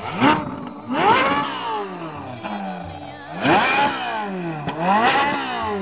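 Ferrari 458 Italia's V8 revving hard as it drives past at speed. There are about four surges, each climbing sharply in pitch and then falling away.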